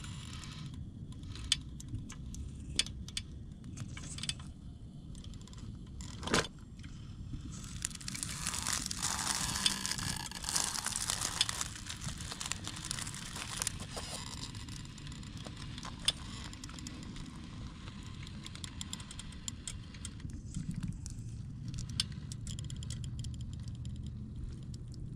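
Electric RC rock crawler on Vitavon Ryft axles crawling over rock: a low drivetrain hum with tyres and links clicking and scraping on stone. There is a sharp knock about six seconds in, and a louder stretch of scraping and crackling from about eight seconds in, lasting several seconds.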